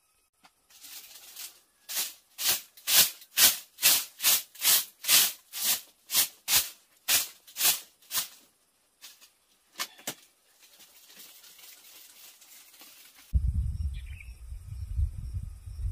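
Brisk swishing strokes of a bundle of thin bamboo sticks brushing across a bamboo slat bed, about two and a half strokes a second for several seconds, then a few scattered strokes. Near the end wind buffets the microphone with a low rumble.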